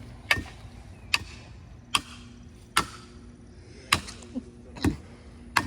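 Felling wedge being driven into a tree's cut with hard, regular hammer blows: seven sharp strikes, roughly one every second, to push the tree over.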